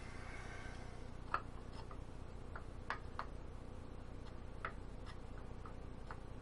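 Scattered light clicks and taps, about nine at irregular intervals, as small metal parts and tools are handled, over a steady low hum.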